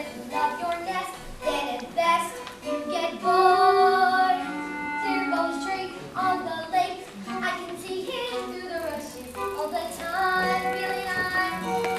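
Children singing a musical-theatre song with instrumental accompaniment.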